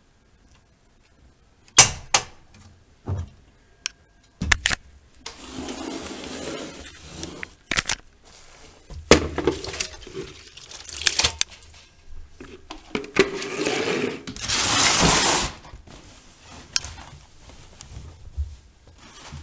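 Miele Softtronic W3923 front-loading washing machine: a few sharp clunks, then water rushing in several separate spells with knocks between, the loudest spell about fifteen seconds in, typical of the machine filling at the start of a wash.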